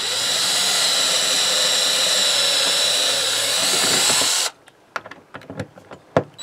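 Cordless right-angle drill running forward with a steady whine, boring through carpet into the plywood subfloor. It cuts off suddenly about four and a half seconds in, followed by a few light clicks and knocks.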